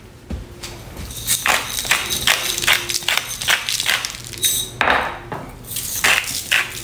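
Salt and pepper being dispensed from a glass spice jar over raw burger patties: quick rhythmic strokes, about four a second, with a short pause midway.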